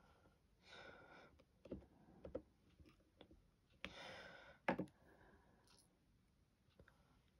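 Faint scattered clicks and taps, typical of a diamond-painting drill pen and resin drills being worked on the canvas, the sharpest about two thirds of the way through. Two soft breaths, about a second in and around the middle.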